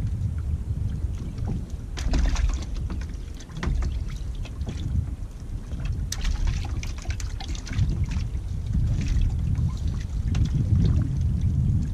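Wind rumbling on the microphone aboard a small drifting boat. Bursts of clicking and rattling come about two seconds in, again around six seconds and near the end, as a fishing reel is wound in and a rig of mackerel feathers with a fish on is brought up.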